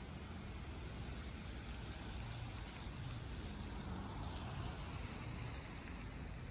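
Steady city street ambience: a low, even rumble of traffic with a faint hiss.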